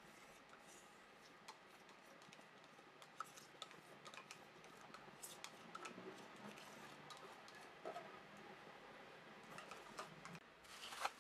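Faint clicks and scrapes of a metal spoon scooping yogurt out of a plastic cup into a ceramic bowl, with a louder clatter near the end.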